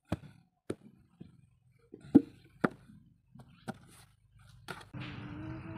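Hand-moulding of clay bricks: a series of sharp knocks and thuds as wet clay is slapped into the brick mould and the mould is struck and turned out on the ground, about eight knocks, the loudest a little past two seconds in. Near the end they give way to a steady noisy background with a low hum.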